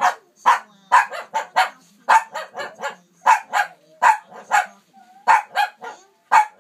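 A Shih Tzu barking insistently: a quick, unbroken run of short, sharp barks, coming in twos and threes at about two to three a second.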